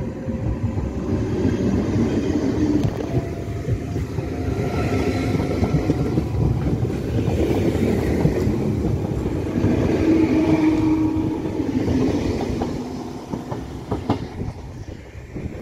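Dutch NS double-deck electric train passing close by: a loud rumble of wheels on rail with clattering over the rail joints and a shifting electric whine, fading away over the last few seconds.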